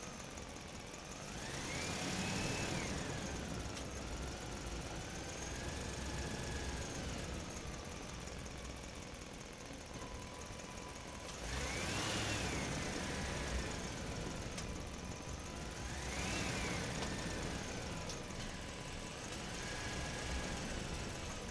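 An engine running steadily and revving up and easing back down about three times, the pitch rising and falling with each rev.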